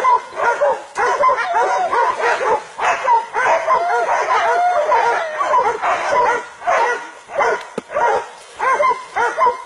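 A pack of hunting dogs barking and yelping in rapid, overlapping calls as they hold a wild boar at bay. The calls ease off briefly near the end.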